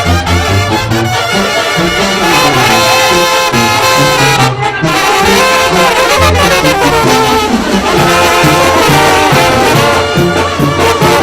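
Mexican banda (brass band) playing live: trumpets and trombones carry the melody over a steady, rhythmic low bass line.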